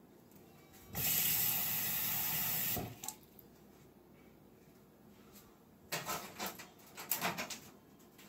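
Kitchen tap running for about two seconds, filling a mug with water, then shut off sharply. A few seconds later there is a short run of knocks and clatter.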